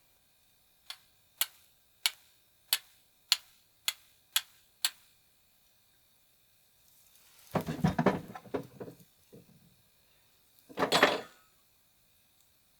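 Flint and steel being struck, eight sharp clicks about every two-thirds of a second, each with a brief high ring, as sparks are thrown to light a fire. Then two longer noisy bursts follow, the second shorter, near the end.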